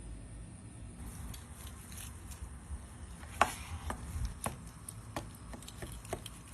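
Irregular clicks and knocks of food preparation, such as cutting or handling food; the sharpest knock comes about three and a half seconds in.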